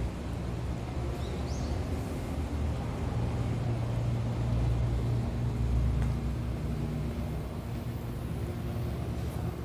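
Low steady rumble of a motor vehicle running close by on the road, getting a little louder in the middle and then easing off.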